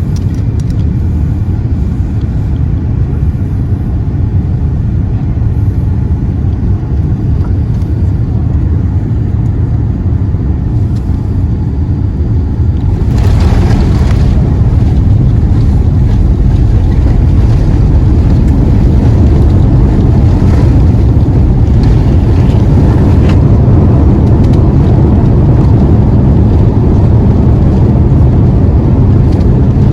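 Boeing 787-9 cabin noise on final approach, a steady low rumble of airflow and engines. About 13 s in the airliner touches down: a brief rushing jolt, then a louder steady rumble of the landing roll.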